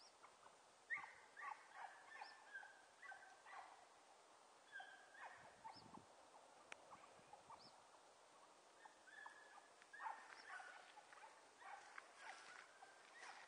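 A pack of hunting dogs, out of sight in thick brush, yelping and giving tongue on a rabbit's scent. The faint, short, high yelps come in quick runs starting about a second in, stop for a few seconds in the middle, and pick up again about nine seconds in.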